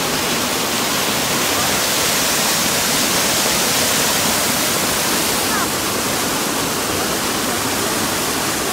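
Steady, loud rush of white water cascading down a small rocky waterfall. The hiss grows a little brighter in the middle, then eases.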